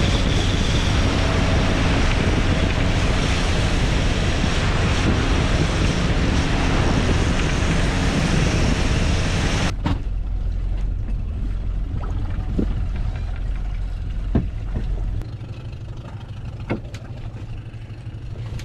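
Small outboard-powered boat under way: a loud steady rush of wind, wake water and outboard motor. About ten seconds in it gives way abruptly to a quieter, steady low engine rumble with a few short sharp knocks.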